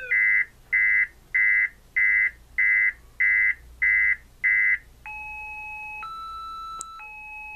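Six-tone car alarm siren, with some of its tones disabled by cutting the jumpers, cycling through its remaining tones: eight quick beeps about 0.6 s apart, then about five seconds in a two-tone hi-lo tone that switches pitch about once a second.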